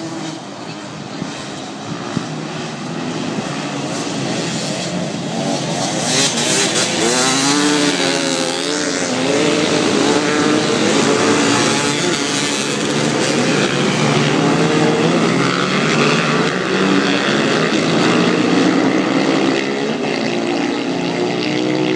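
A pack of dirt track racing motorcycles running hard, many engine notes rising and falling over one another as the field comes round the track. The sound builds over the first several seconds and then stays loud.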